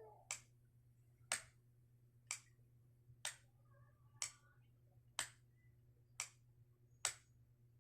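Sharp clicks of a signal light's switch, pressed and released about once a second. The eight clicks make four long flashes, the four dashes of the Morse code for the digit one.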